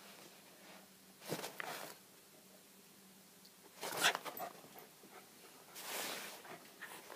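A West Highland Terrier and a person's hand scuffling on carpet in play: three brief soft rustles, the loudest about four seconds in.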